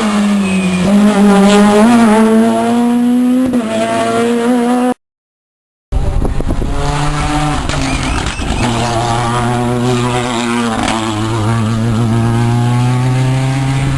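Rally car engine at high revs, its pitch climbing and dropping with throttle and gear changes. It cuts off abruptly about five seconds in, and after a second of silence another rally car's engine takes over at a lower, steadier pitch.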